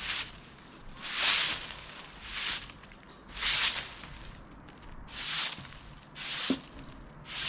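A straw broom sweeping dry leaves across a flat roof covered in roofing felt: seven swishing strokes, about one a second, with a short pause around the middle.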